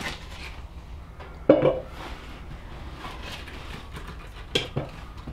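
Kitchen knife slicing butter over an aluminium billy can, with small clicks and scrapes and two sharp clunks of metal on the pot, one about a second and a half in and one near the end.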